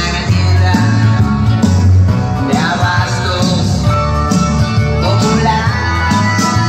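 Loud rock and roll music with guitar over a steady, heavy bass beat, played over a DJ sound system for dancing.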